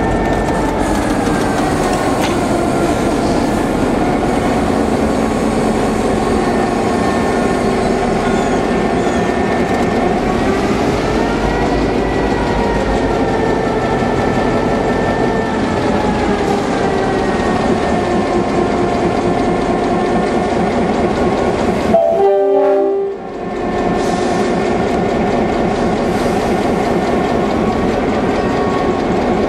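Diesel-electric locomotive engines running close by: a steady, loud mechanical drone whose engine tones drift slowly up and down in pitch. The sound briefly cuts out about two-thirds of the way through.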